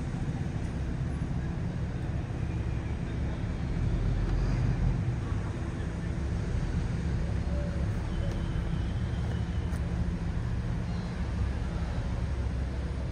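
Outdoor city ambience: a steady low rumble of traffic and cars, swelling briefly about four seconds in.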